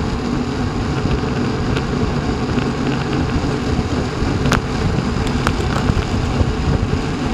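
Wind rushing over the microphone of a bike-mounted camera while cycling at about 25 km/h, a steady low rumble mixed with tyre and road noise, with a few sharp clicks.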